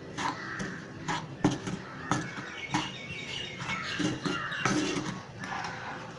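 A wooden spatula scraping and knocking against a kadai as it stirs a dry rava-and-sugar mix, a string of short scrapes and knocks, with bird calls in the background.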